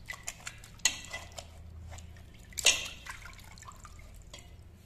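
Water splashing and dripping in a steel pot as bitter gourds are rubbed and washed by hand, with two sharper, louder sounds about a second in and near three seconds.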